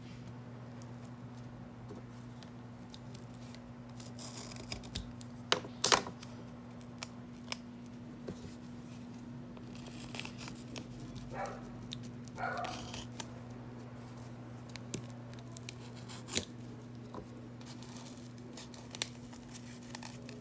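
Thick paper wrapping of a pla pla firecracker being picked apart and torn by hand: scattered rustles, scrapes and sharp clicks, loudest about six seconds in, over a steady low hum.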